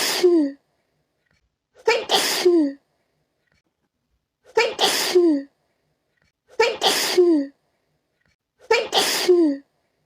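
A person sneezing over and over, one sneeze about every two seconds: four full sneezes plus the end of one at the start. Each is a quick in-breath, a sharp explosive burst, and a voice falling in pitch at the end.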